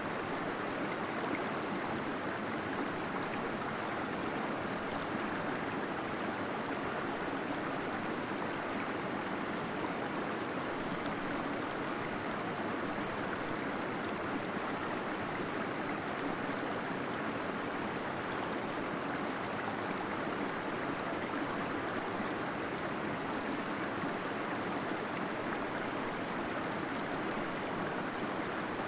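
Small waterfall inside a cave, water falling and gurgling in a steady, even rush.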